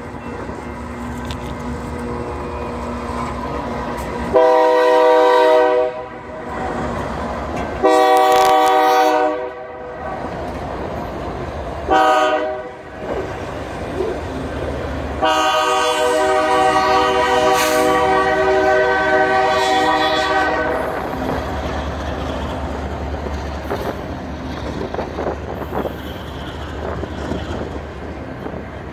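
Freight diesel locomotive's multi-tone air horn sounding the grade-crossing signal: two long blasts, a short one, then a longer final blast, over the steady rumble of the passing diesel locomotives. After the horn stops, the low rumble of the double-stack container cars rolling by on the rails goes on.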